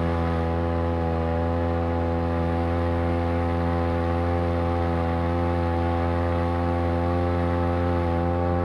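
Converted outboard motor with a Champion T516 two-stroke trimmer engine running at a steady speed, a continuous even drone with no change in pitch.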